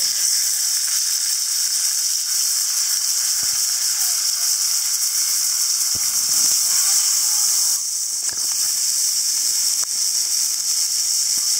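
A raw beef burger patty sizzling in hot bacon fat in a cast iron skillet on a barbecue grill: a loud, steady high hiss that dips briefly about eight seconds in.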